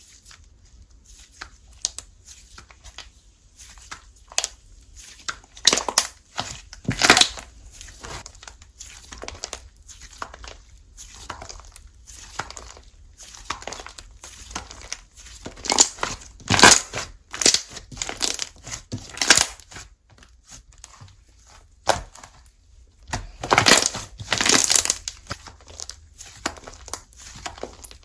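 Hands squishing, pressing and stretching slime, making irregular crackling and popping sounds as trapped air bursts. The pops are loudest in clusters about six seconds in, in the middle, and near the end.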